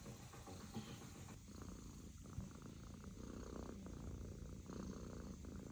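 British Shorthair kitten purring: a faint, continuous low rumble.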